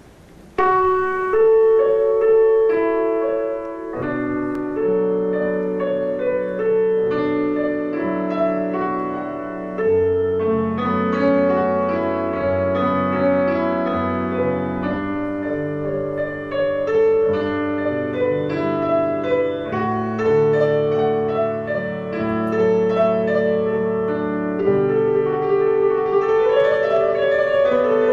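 Piano music: a slow melody over held chords, beginning suddenly about half a second in.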